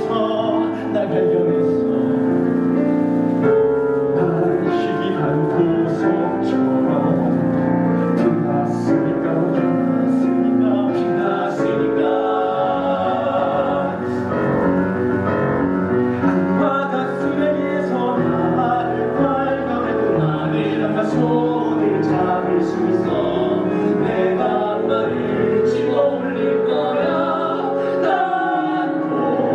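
Live musical theatre singing: several cast voices sing a song together over instrumental accompaniment.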